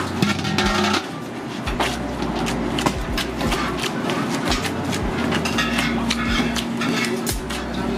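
Samosa dough being kneaded by hand in a steel bowl: many short knocks and thuds over a steady kitchen hum.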